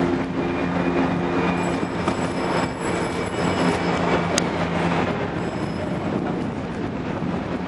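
Urban outdoor noise dominated by a passing large vehicle: a steady rumble with a low engine-like hum that fades out about five seconds in, and a faint high whine over it.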